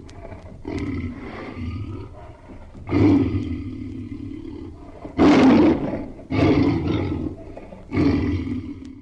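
Tiger roaring: a series of about six roars, each starting sharply and fading away, the loudest about halfway through.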